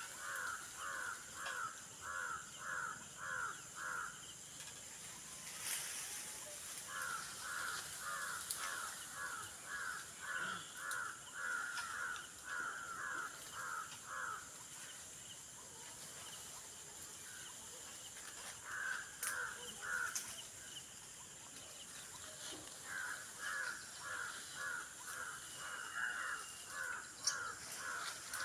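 Bouts of harsh animal calls repeated quickly, about two a second, each bout running several seconds with short pauses between bouts.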